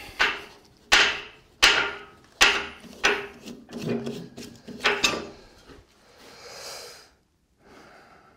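Small wooden bowl being twisted by hand off the threaded spindle of a bowl coring machine: a run of about six sharp wooden knocks and creaks as it breaks loose, then softer rubbing as it comes free.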